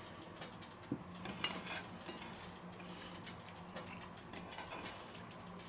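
Faint rustling of shredded lettuce being piled onto a burger patty by hand, with a couple of light clicks against the plate about a second in, over a low steady hum.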